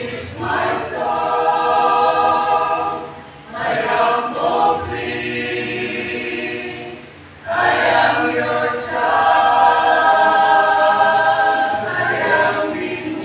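Mixed-voice church choir of men and women singing together through microphones in long sustained phrases, with short breaks about three and a half and seven seconds in.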